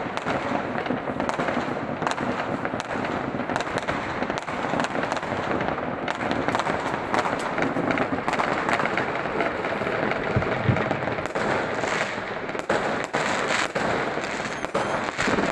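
Many fireworks and firecrackers going off at once, near and far, in a continuous crackle of overlapping bangs and pops.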